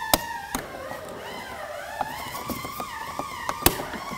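Metal pick clicking and scraping against a small plastic trim cover in a car door's pull-handle recess, with a sharp snap near the end as the cover pops up. Soft background music plays underneath.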